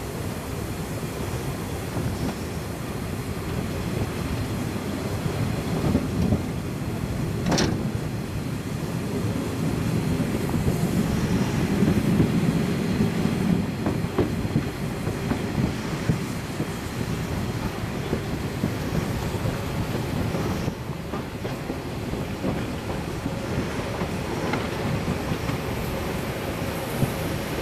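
Narrow-gauge steam train running, heard from one of its coaches: a steady rumble and clatter of the wheels on the rails, with one sharp click about seven and a half seconds in.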